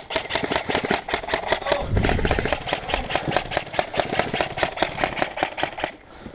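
Airsoft electric gun firing a long full-auto burst: a steady rattle of sharp clicks, about eight a second, lasting about six seconds.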